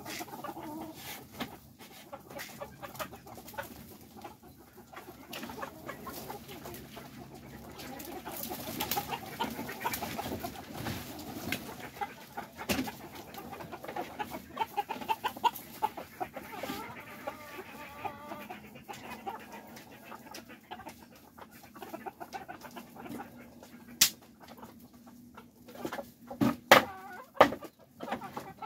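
Silkie chickens clucking quietly as a flock, with scattered small taps throughout. A few sharp knocks stand out near the end.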